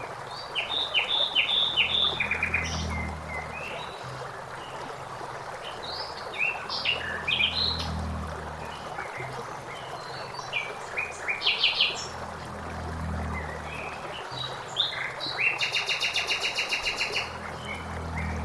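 Common blackbird singing short phrases every few seconds over steadily flowing water, with a fast trill of evenly repeated notes near the end.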